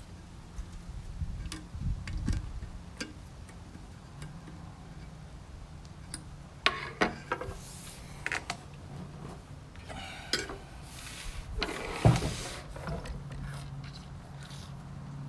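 Scattered light clicks, taps and rubbing from hand work with small screws and a nut driver on the back of an instrument cluster, with one sharper knock near the end.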